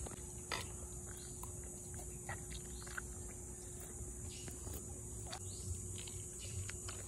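Spoon and fork clicking and scraping against ceramic plates during eating, a dozen or so short irregular clicks, over a steady high insect drone.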